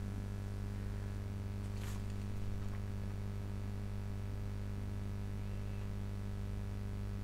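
Steady low electrical hum, with a faint short rustle about two seconds in.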